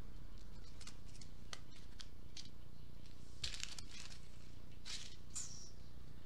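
A handful of brief rustles as a paper sheet is handled and shifted on a table, over a steady low hum.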